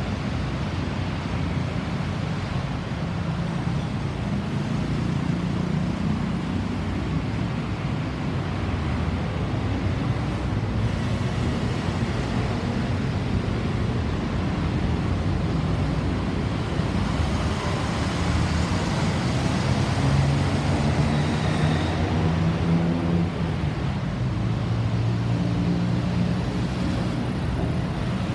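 Road traffic: motor vehicle engines running with a steady low hum that shifts in pitch, over road noise, with no siren sounding.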